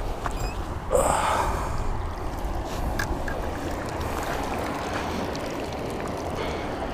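Wind rumbling on the camera microphone, a steady low noise, with a short louder rush of noise about a second in.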